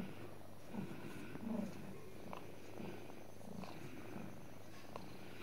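Domestic cat purring steadily while being stroked, the purr swelling and fading with each breath.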